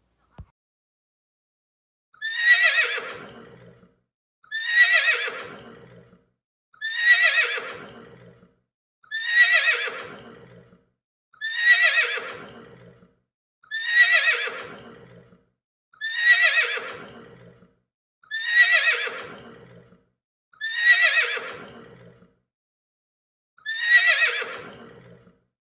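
Horse whinnying, the same call repeated ten times at an even pace: each one a shaky, wavering neigh that slides down in pitch over about two seconds.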